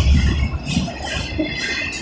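CSX autorack cars rolling past at a grade crossing: a steady rumble and clatter of wheels on rail, loudest at the start, with the crossing signal's bell ringing over it.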